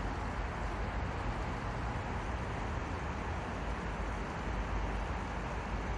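Steady, unchanging running noise of a four-car Gwangju Metro Line 1 electric train moving near the station at a distance, a low rumble under an even hiss.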